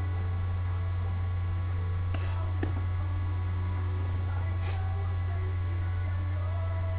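A steady low electrical hum, with a couple of faint clicks a little over two seconds in and a brief hiss near five seconds.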